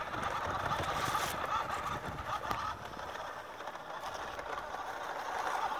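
Small electric motor and gearbox of a battery-powered toy 4x4 RC car whirring steadily as it drives over dry grass, growing fainter after about two and a half seconds as the car pulls away.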